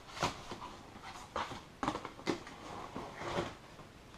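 A cardboard product box and its packaging being handled and opened by hand: a series of scattered rustles, taps and knocks.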